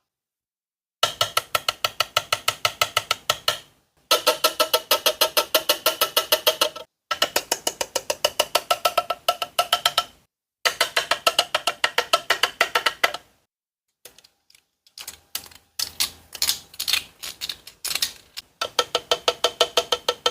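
Toy giving off runs of rapid clicks, about seven a second, with a steady pitched ring under them, each run lasting about three seconds and stopping abruptly. Near the end the clicks come more unevenly.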